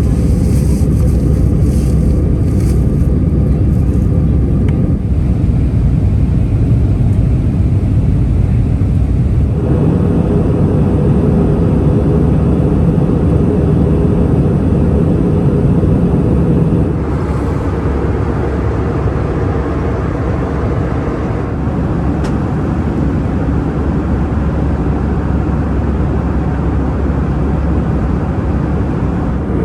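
Airbus A319 cabin noise: a steady, loud rush of jet engines and airflow heard from a rear economy seat. The noise shifts in tone and level a few times, about five, ten and seventeen seconds in.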